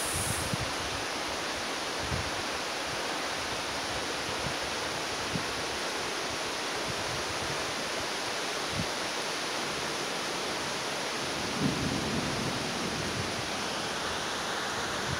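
Heavy rain pouring steadily, a dense even hiss, with a brief low rumble about twelve seconds in.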